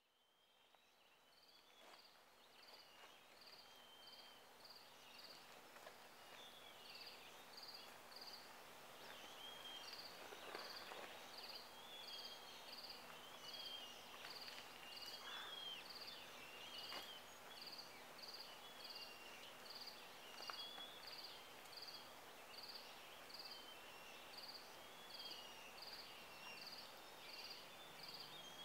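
Faint outdoor ambience fading in over the first few seconds: a high chirp repeats steadily about two or three times a second, with scattered bird chirps beneath it and a few faint clicks.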